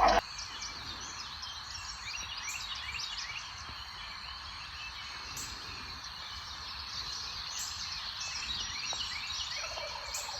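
Outdoor wildlife chorus: many birds chirping and calling over a steady high trill, with wild turkeys gobbling among them.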